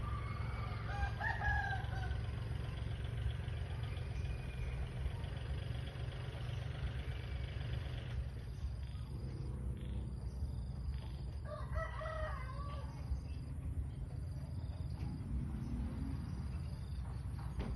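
A rooster crowing twice, once near the start and again about eleven seconds later, over a steady low rumble.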